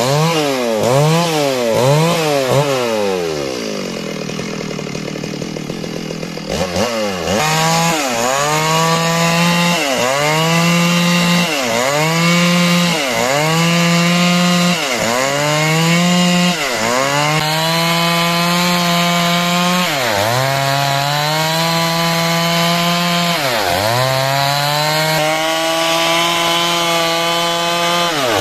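Stihl two-stroke chainsaw ripping timber into rafters: it revs up and down quickly a few times, drops to idle for about three seconds, then goes back to full throttle about seven seconds in and holds a high steady pitch that sags briefly every second or two as the chain bites into the wood.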